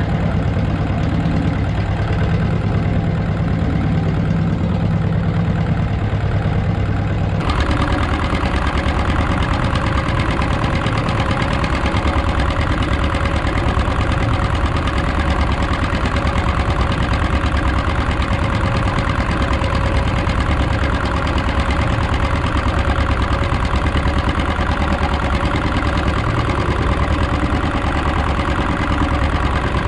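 A wooden fishing boat's engine running steadily. About seven seconds in the sound changes abruptly and turns brighter.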